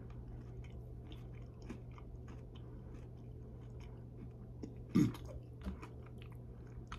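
A person chewing a bite of a Cinnamon Cocoa Pebbles milk chocolate candy bar, with many small faint crackles as it is chewed. A brief louder mouth sound comes about five seconds in, over a faint steady low hum.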